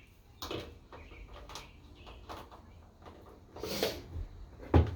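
Handling noise as a charger cord and toolbox parts are worked by hand: scattered light clicks and knocks, a brief scrape a little under four seconds in, and a sharp knock near the end, the loudest of them.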